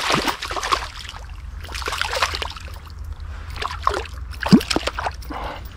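Irregular splashing and sloshing of river water as a hooked trout struggles on the line, with one louder sudden sound about four and a half seconds in.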